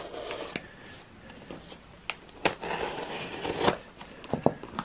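A taped cardboard box being opened by hand: scraping and rustling of packing tape and cardboard, with a few sharp clicks in the second half.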